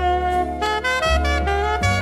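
Easy-listening orchestra recording from a late-1960s LP: saxophones and brass hold long chords over a bass line that moves to a new note about every second.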